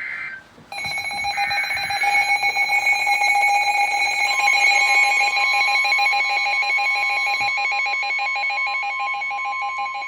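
Emergency Alert System attention tone on a radio broadcast: a short buzzy data burst, then a steady electronic alert tone that starts about a second in and holds, with a second, higher tone joining about four seconds in. The tone announces an emergency alert, here a severe thunderstorm warning.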